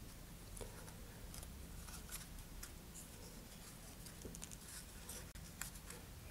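Faint handling noise from a model rocket motor mount being turned in the hands: scattered small clicks, taps and scrapes of the paper motor tube, centering rings and shock cord.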